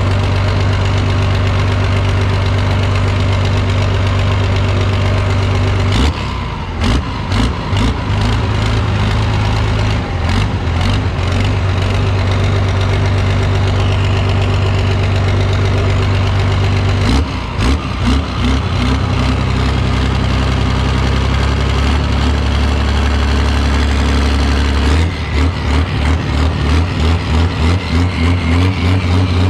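A vehicle engine running steadily. Its note shifts about six seconds in and again around seventeen seconds, and near the end it settles into an uneven, pulsing idle of about two or three beats a second.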